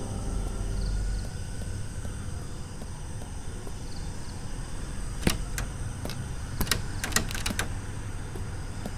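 Steady low ambient rumble. About five seconds in comes a run of sharp clicks and rattles of a door latch being worked, with the last few clicks coming close together.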